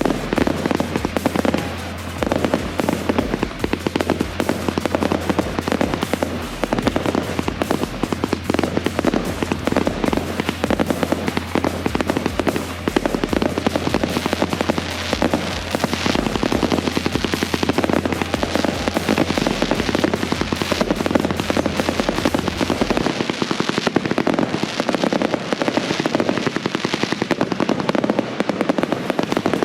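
A dense, rapid barrage of consumer firework reports: many bangs and crackles in quick succession. Music with a steady low bass plays beneath, and the bass drops out about three quarters of the way through.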